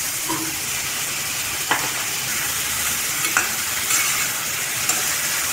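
Chopped onions sizzling as they fry in hot oil in a pressure cooker, stirred with a spatula, with three sharp taps of the spatula against the pan.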